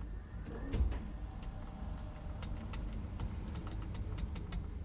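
Repeated sharp clicks of toggle switches being flipped on a drag car's overhead switch panel that has stopped responding, over a low steady rumble.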